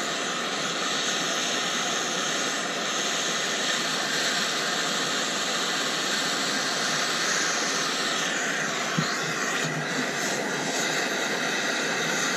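Handheld MAP gas torch burning with a steady hiss, its flame heating the corrosion-frozen bell of a Leslie RS3L train horn to free the seized threads.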